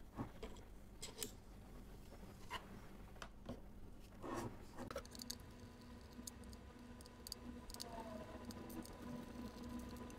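Small handling noises of a precision screwdriver set and a plastic display base: a bit clicking as it is taken from its plastic case, then the screwdriver turning screws out of the hard plastic, with light clicks, ticks and scrapes of metal on plastic. A faint steady hum joins about five seconds in.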